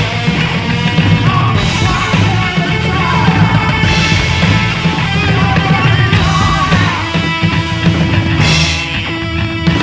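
A rock band playing loudly: electric guitar, electric bass and drum kit, with cymbals crashing about one and a half seconds in, again near four seconds, and near the end.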